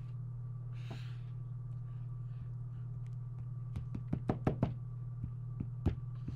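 Small sharp knocks and clicks of a hard object being handled on a tabletop, a quick run of about six about two-thirds of the way through and one more near the end, over a low steady hum. A short rustle comes about a second in.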